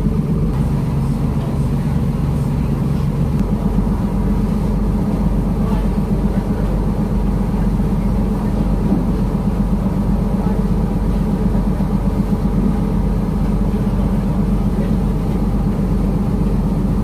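Steady drone of the catamaran's twin Scania straight-six 12-litre diesel engines running under way, with a slight change in engine tone about three and a half seconds in.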